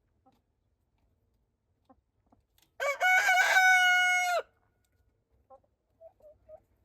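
A rooster crows once, about 1.5 seconds long, the last note held level before it stops. A few faint, short chicken calls follow.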